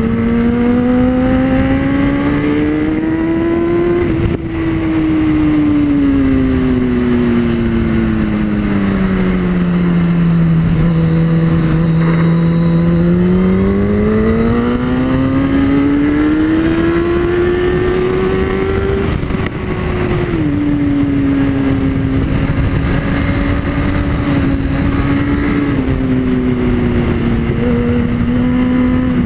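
Sport motorcycle engine heard onboard at track speed, with wind rush throughout. The revs climb to a brief dip about four seconds in, then the pitch slowly falls for several seconds as the bike slows, climbs again to a sharp drop of a gear change near twenty seconds, and holds fairly steady to the end.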